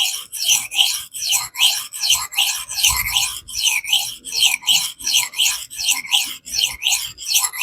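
A Kizer Baby knife's 154CM steel blade stroked back and forth on a silicon carbide stone, a steady rasping scrape at about three strokes a second, knocking the burr back off the edge.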